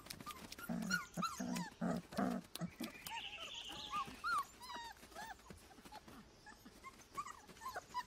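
Grey wolf pups whining and squeaking in many short, high, arching cries, with a few lower short calls in the first couple of seconds: six-week-old pups begging their mother for food.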